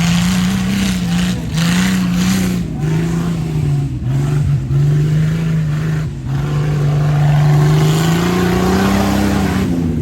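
Engine of an off-road race vehicle running hard under throttle, its pitch dropping and climbing again several times, then a long slow climb.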